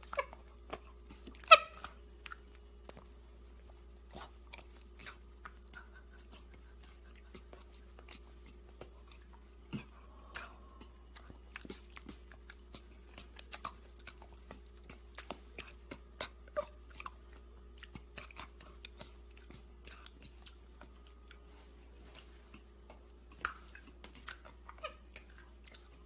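A monkey eating ice cream: many small, irregular chewing and smacking clicks. There is a short louder sound about a second and a half in, and a louder run of clicks near the end.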